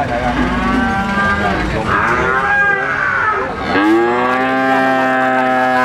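Cattle mooing: several long, drawn-out calls one after another, the last one held steady from just past the middle.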